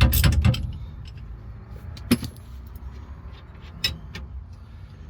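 Socket ratchet clicking rapidly as the steering wheel nut is spun off, stopping about half a second in. After that, a few single light metallic clicks of tools and parts being handled.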